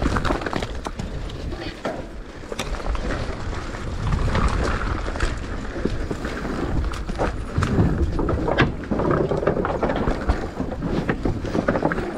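Mountain bike descending a loose dirt trail: tyres rolling over loose ground, with the bike rattling and knocking over the bumps.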